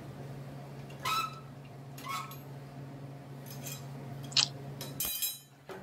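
About four light metallic clinks and taps, a couple of them with a short ring, as the new steel floor pan is worked into position against the rocker. A steady low hum runs underneath.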